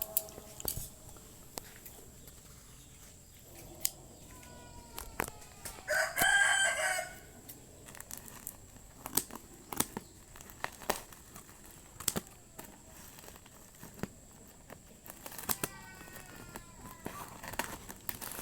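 One loud bird call about six seconds in, lasting about a second, with fainter falling bird calls around it. Scattered sharp clicks and crinkles of packaging being handled run through the whole stretch.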